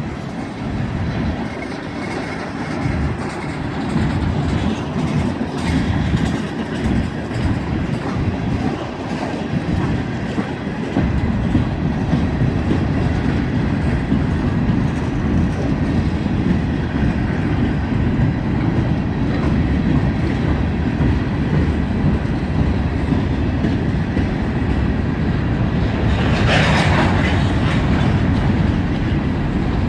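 BNSF freight train rolling past, its cars' wheels clacking over the rail joints in a steady rhythm over a low rumble. A brief higher, hissing or screeching burst comes near the end.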